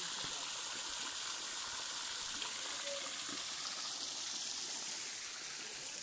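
Waterfall pouring steadily, heard close at its foot: an even, unbroken hiss of falling and splashing water.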